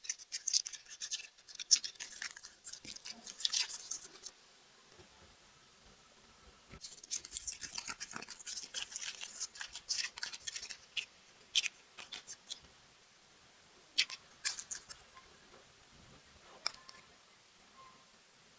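Close-up handling of plastic toy packaging and small plastic pieces: crisp rustling and clicking in bursts, with a quiet gap about four seconds in and only scattered single clicks in the last part.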